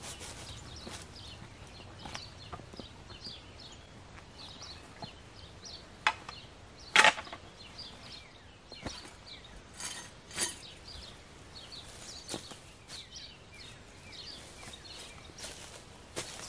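Small birds chirping repeatedly in the background, with scattered clicks and knocks of gear being handled at a backpack. The sharpest knock comes about seven seconds in, and two quick clicks follow around ten seconds.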